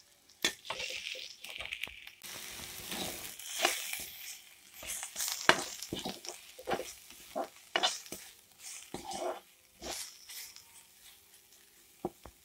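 Metal spatula scraping and stirring in a hot kadai (wok) in irregular strokes, over the sizzle of ground spices frying in oil with onions.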